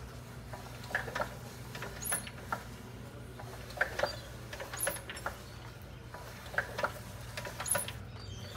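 Holden Grey Motor inline-six cutaway display engine turning over slowly. A steady low hum runs beneath short clicks from its moving parts, and a brief high squeak comes back about every three seconds.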